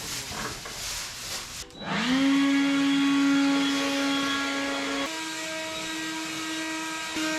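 An electric power tool's motor starting up, its whine rising quickly to a steady pitch and stepping slightly higher about five seconds in, after a couple of seconds of uneven clattering.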